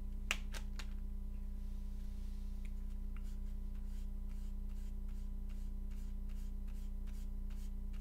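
Light plastic clicks and ticks of hands handling a clear plastic keycap tray of keycaps: one sharper click about a third of a second in, then a run of faint ticks at about four a second, over a steady low electrical hum.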